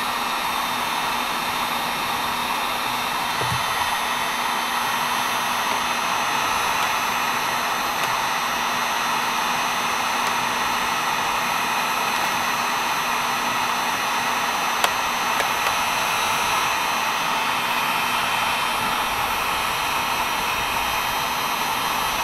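Electric heat gun blowing steadily: an even fan-and-air rush with a faint constant hum, held on heat-shrink tubing over a wire at a Powerpole connector.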